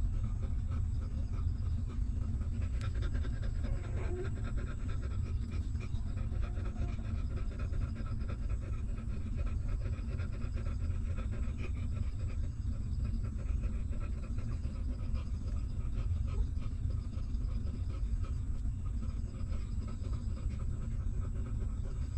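A mother dog panting in quick, even breaths over a steady low rumble. The panting is plainest in the first half and fades later.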